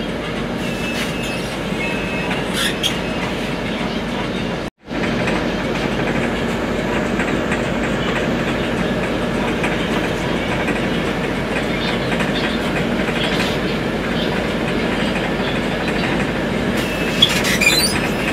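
Cabin noise inside a Scania articulated bus: a steady rumble of engine and road with light rattles of the fittings, a few sharper clicks near the end. The sound cuts out for an instant about five seconds in.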